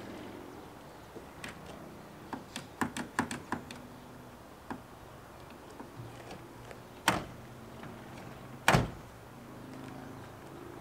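Cab door of a 2006 GMC Sierra pickup being handled: a run of light clicks and rattles, then two heavy thuds about a second and a half apart, the second the loudest.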